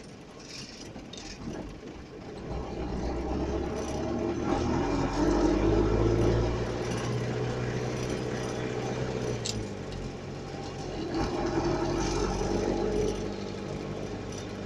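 A vehicle's engine pulling away, its note building over several seconds, dropping about ten seconds in, then building again before easing off, with one sharp click where it drops.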